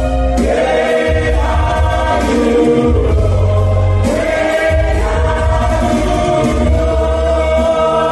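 A live gospel vocal group singing in harmony through microphones, backed by a band, with held bass notes underneath.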